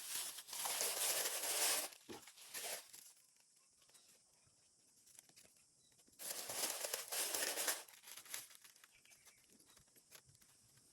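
Packaging being torn and crinkled by hand, in two main bursts of about a second and a half each, one near the start and another about six seconds in, with a few short rustles between.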